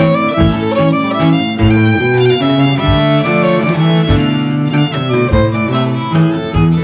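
Violin, cello and acoustic guitar playing an instrumental tune together, the bowed violin carrying the melody over the cello and guitar. A soft low thump falls about every second and a quarter under the music.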